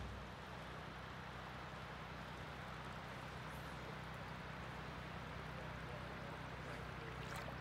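Steady rush of flowing creek water, with a brief click near the end.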